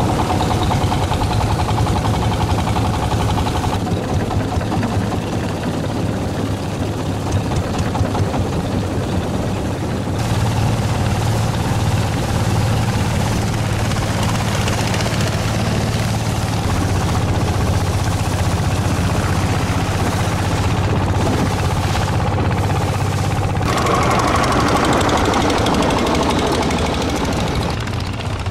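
Motorboat engine running steadily, a loud continuous low hum.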